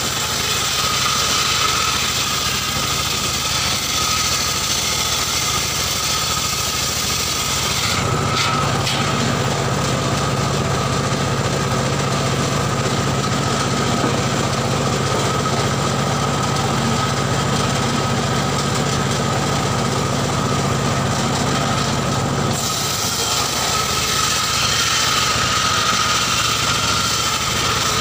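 Engine-driven homemade circular saw running steadily, its large blade cutting through a mahogany log with a hissing whine. About 8 seconds in the cutting noise drops away and only the engine and spinning blade are heard. The cutting noise returns a few seconds before the end as the log is fed in again.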